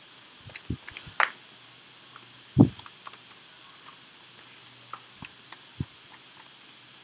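Scattered light clicks and taps with a few dull thumps, the loudest about two and a half seconds in: handling noise from drawing on a screen, over a faint steady hiss.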